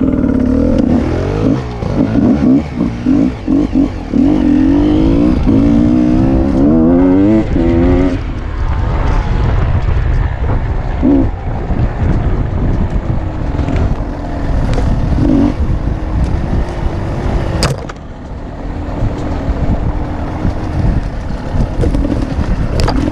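A motor vehicle's engine running and revving unevenly, its pitch rising and falling for the first eight seconds and then steadier, over a rumble of driving noise. Two sharp clicks come near the end.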